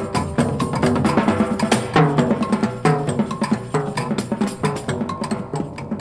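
Instrumental recording of pianos and percussion: pitched keyboard notes over quick, dense percussion strikes, getting a little softer toward the end.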